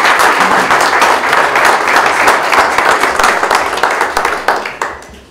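A small audience applauding, a dense patter of hand claps that thins out and dies away near the end.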